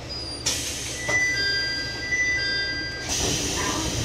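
Electronic two-tone chime inside a one-man diesel railcar, alternating notes sounding for about two seconds after a click, typical of the chime at a station stop. A hiss follows near the end.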